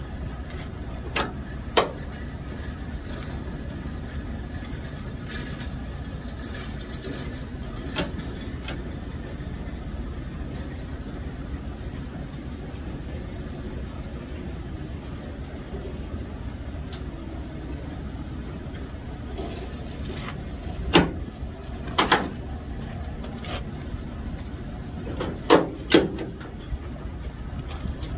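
Diesel semi-truck running with a steady low rumble. Several sharp knocks or clacks break through it: two about a second in, one around eight seconds, and two close pairs near the end.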